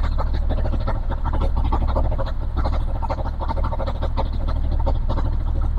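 Yamaha Jupiter MX King's single-cylinder four-stroke engine idling steadily with a fast, even beat. It is running smoothly and stably with its valve clearances freshly adjusted.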